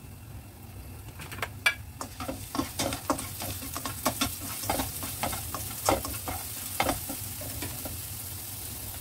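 Minced ginger sizzling in hot oil in a wok while a spatula stirs it, scraping and clicking against the pan. The stirring clicks start about a second in and stop near the end, leaving the steady sizzle.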